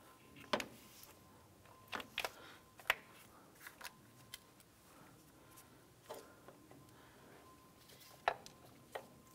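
Scattered light clicks and taps of a plastic engine wiring harness and its connectors being handled and laid over the valve cover, with a sharp one about three seconds in and another about a second before the end.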